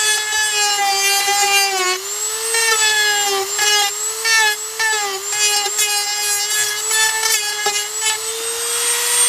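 Small high-speed power tool whining steadily as it shaves material down to make the stereo fit; its pitch dips each time it bites into the material and recovers, and it begins to wind down right at the end.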